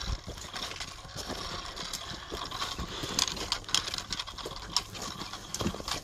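Hikers' boots crunching on snow and trekking poles clicking on rock, in an irregular run of steps and taps.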